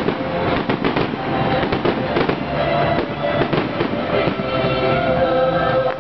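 Fireworks going off in quick succession, many overlapping bangs and crackles, with music playing underneath.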